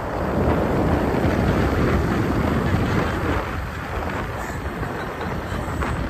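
Steady wind rush buffeting the microphone of a phone held up on a moving motor scooter, with road and engine noise from the ride underneath.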